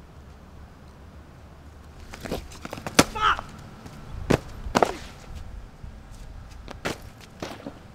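A man kicking a bag across asphalt: about half a dozen sharp thumps and smacks with footfalls, spread over several seconds, the loudest about three seconds in.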